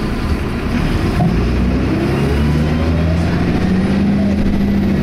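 Optare Tempo single-decker bus heard from inside, its engine and Allison automatic gearbox running under way with a whine rising in pitch over a couple of seconds. This is the Voith-like transmission noise that the owner finds strange for an Allison gearbox.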